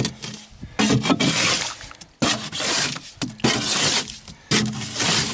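A steel shovel digging into wet mud slurry in a trough, scraping against the container and slopping the mud in repeated strokes about one a second.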